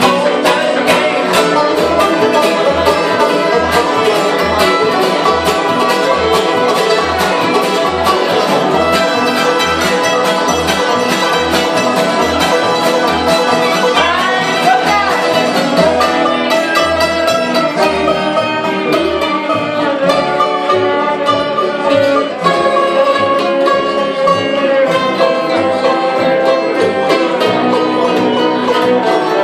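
Bluegrass band playing live: banjo, mandolin, acoustic guitar, fiddle and upright bass together, the bass keeping a steady beat about twice a second.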